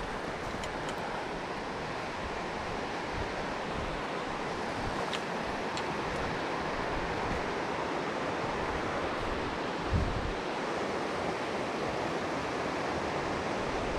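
Steady rushing of a mountain river's current, with a brief low thump of wind on the microphone about ten seconds in.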